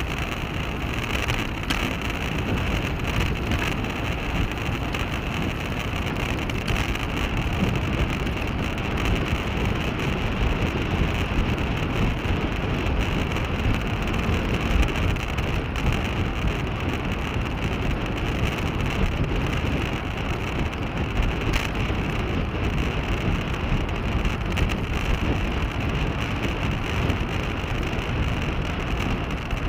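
Steady wind rush and road noise from a bicycle-mounted action camera while riding, with no pauses or distinct events.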